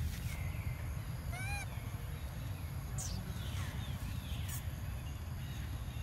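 A few short, high animal calls: one about a second and a half in that rises and falls, one about three seconds in that drops sharply in pitch, and a few fainter ones after it. A steady low rumble runs underneath.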